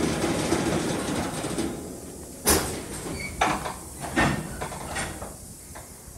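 Freight train's covered hopper cars rolling slowly past: a steady rumble of wheels on rail, then a series of sharp metallic clacks about once a second, the first the loudest.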